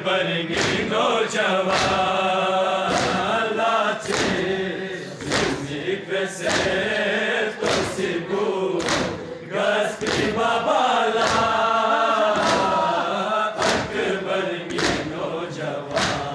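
A crowd of men chanting a Balti noha, a Muharram lament, in unison. It is kept in time by their palms striking their chests (matam), about one beat a second.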